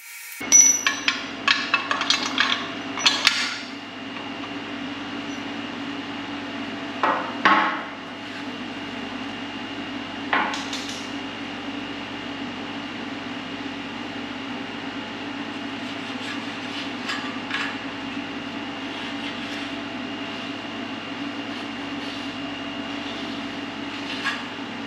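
Steady hum of an air conditioner running, with a cluster of sharp metal clanks in the first few seconds and two more knocks at about seven and ten seconds in, from a steel suspension mount bracket being handled against a truck frame.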